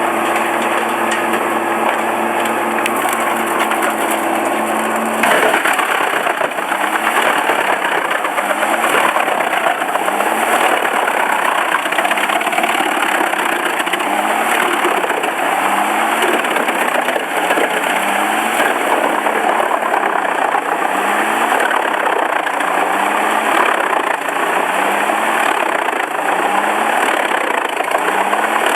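Engine-driven wood chipper machinery running steadily. About five seconds in the sound changes abruptly to a louder, noisier machine run, with a short rising note repeating roughly once a second.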